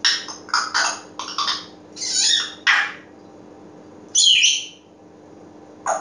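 African grey parrot calling: a quick run of short, harsh squawks and chirps over the first three seconds, then a pause and one more call a little after four seconds in.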